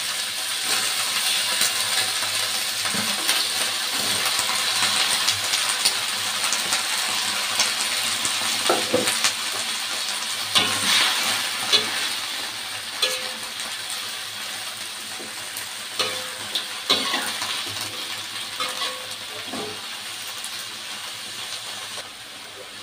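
Napa cabbage sizzling as it stir-fries in a large wok, with a spatula scraping and clattering against the pan now and then. The sizzle slowly dies down toward the end.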